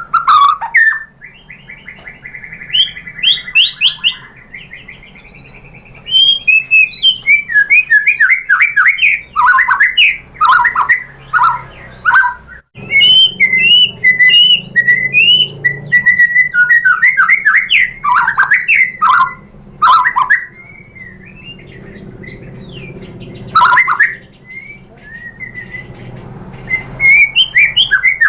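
White-rumped shama (murai batu) singing: loud, fast runs of varied whistled and chattering notes in bursts, with a few quieter gaps between.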